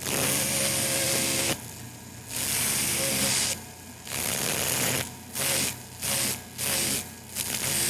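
Dentist's drill switched on and off in bursts: three runs of about a second each, then four shorter bursts, quicker together, in the second half.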